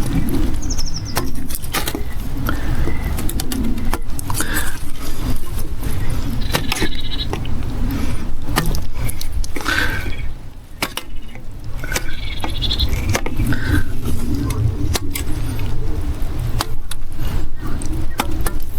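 Irregular scraping and sharp clicks of a hand tool cutting the edge of a PVC irrigation pipe end, to ease fitting a connector, over a steady low rumble. A small bird chirps briefly a few times.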